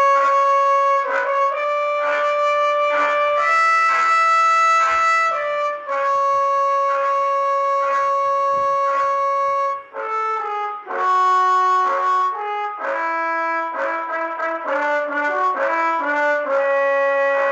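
Bus telolet horn, a multi-trumpet musical air horn, playing a Javanese song melody: long held notes for about the first ten seconds, then a quicker run of shorter notes after a brief break.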